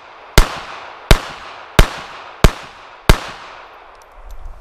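Five pistol shots from a Beretta 3032 Tomcat in .32 ACP, fired at an even pace about two-thirds of a second apart, each shot trailing off in a short echo. The rounds are about 25-year-old Winchester 71-grain full-metal-jacket ammunition, firing without a hitch.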